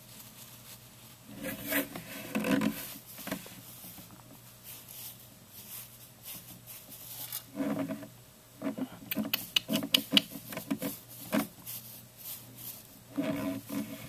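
Russian dwarf hamster scratching and rustling about its cage in short bursts, with sharp little clicks among the scrabbling.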